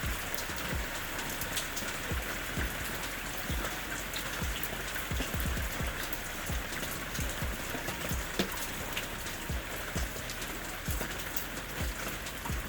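Steady rain falling, with many separate drops landing as sharp ticks and soft thuds over a constant hiss.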